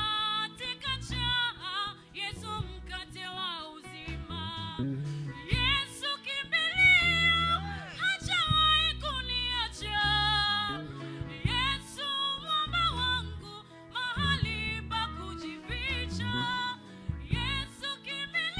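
Gospel praise band music with a steady bass and a high, bending lead melody.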